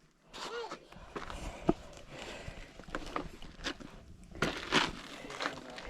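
Footsteps and scuffing on rock, with scattered knocks and clicks. A short voice sound comes about half a second in.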